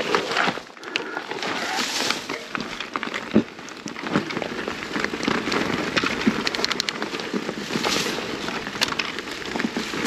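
Electric mountain bike rolling over rough, rocky trail: a steady crunching hiss from the tyres with frequent sharp clicks and rattles.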